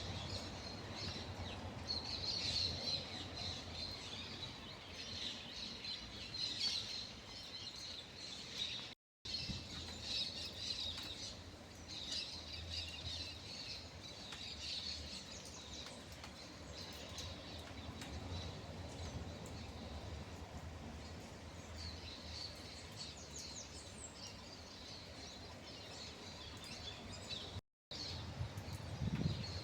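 A chorus of many birds chirping and calling at once, over a low steady background rumble. The sound cuts out completely for a moment twice, about a third of the way in and near the end.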